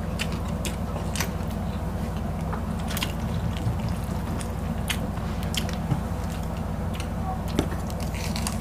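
Close-miked eating: chewing and biting into breaded fried chicken fillet and fried noodles, with scattered sharp clicks and crunches over a steady low hum.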